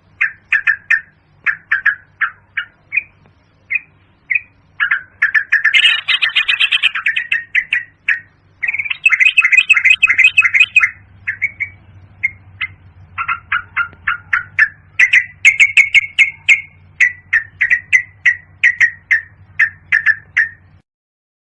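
Yellow-vented bulbul calling: a rapid series of short, bubbly notes, with denser chattering stretches about six, ten and fifteen seconds in. The calls stop shortly before the end, with a faint low hum underneath until then.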